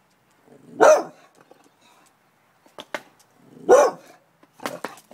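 American Staffordshire terrier barking twice, about three seconds apart, with a few short clicks between the barks.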